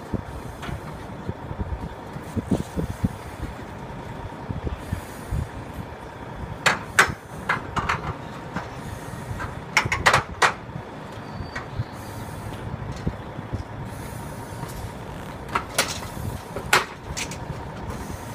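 Sharp metallic clanks and knocks on an aluminium extension ladder as a firefighter climbs it with a pike pole, in a few short clusters, over a steady low rumble like an engine running.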